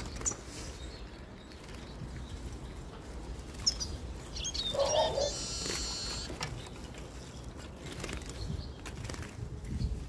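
Small songbirds chirping a few times around the middle, followed by a brief high trill, over a low rumble.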